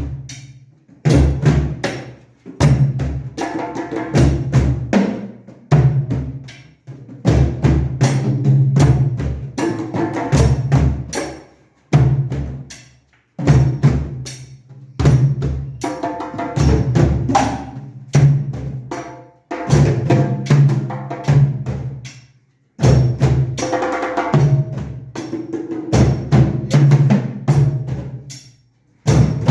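Music with a drum beat and a bass line.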